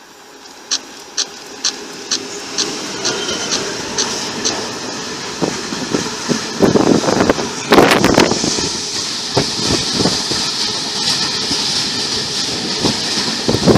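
Diesel-hauled freight train passing close by. A run of sharp clicks about twice a second is heard as it approaches. The sound builds to its loudest rumble around seven to eight seconds in, then settles into a steady rumble and hiss of open box wagons rolling past.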